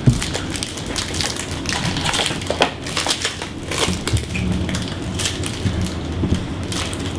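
Trading card pack wrapper being torn open and crinkled: a dense run of crackles and rustles, with a sharp snap at the start.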